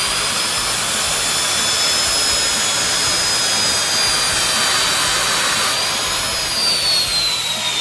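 Circular saw running at full speed and cutting a board, a steady high-pitched whine whose pitch falls gradually from about six seconds in.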